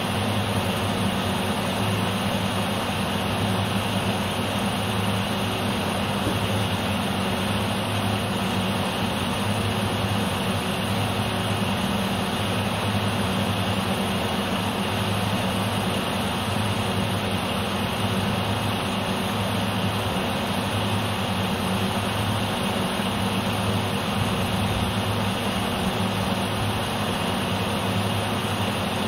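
A steady low hum over an even hiss, unchanging throughout, with no distinct events.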